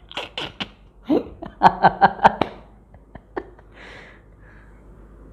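Laughter in quick runs of short bursts, then a short breathy puff about four seconds in.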